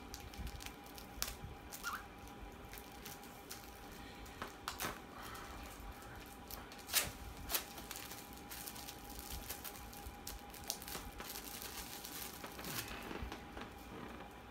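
Plastic shrink wrap crinkling and tearing as it is peeled off a DVD case: scattered crackles, with two sharper snaps about seven seconds in.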